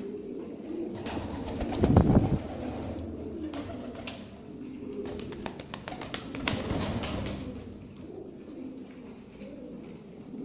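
Many Lahore pigeons cooing together, with many short clicks throughout. A loud rustling burst comes about two seconds in.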